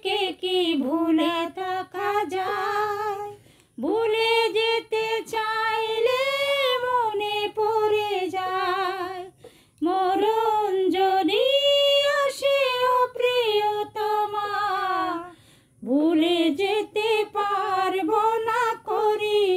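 A woman singing a Bengali love song unaccompanied, in long phrases with three short breaks for breath.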